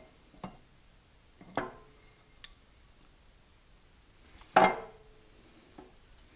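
Steel gear shaft and gears clinking and knocking against the transmission case and the gears already in it as the shaft is worked into place. There are a few light metallic clinks, then one loud ringing clank about four and a half seconds in.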